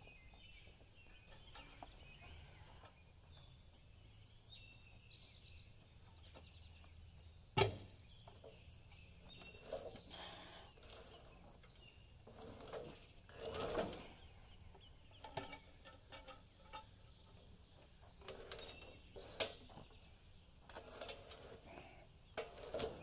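Faint outdoor background with small birds chirping on and off, broken by a few sharp knocks and a longer scraping rub from a cant hook biting into and rolling a log on a sawmill bed.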